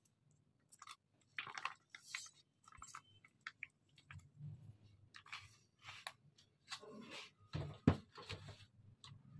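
Spoon scooping thick mayonnaise into a bowl: scattered soft wet squelches with light clicks and scrapes against the bowl, a little busier near the end.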